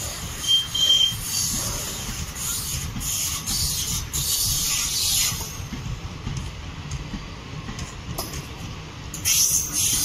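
Indian Railways passenger coaches rolling past on the track: a steady low rumble of wheels on rails, with bursts of high-pitched scraping and squeal from the wheels coming and going.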